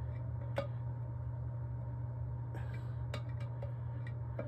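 A steady low hum with about half a dozen light, sharp clicks as the valves of a 6L80 transmission valve body are prodded to check they slide freely and are not stuck.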